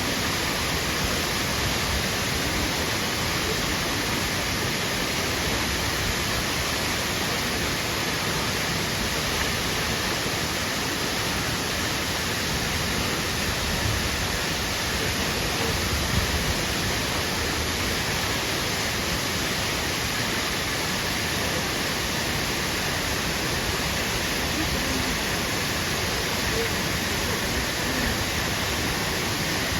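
The Akiu Great Falls waterfall, a steady, unbroken rush of falling water.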